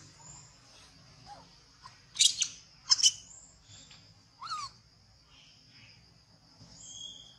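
Young macaques wrestling and giving short, high-pitched screeches, a pair of loud ones about two seconds in and again about three seconds in, then a brief rising-and-falling squeal about four and a half seconds in. A steady high insect drone runs underneath.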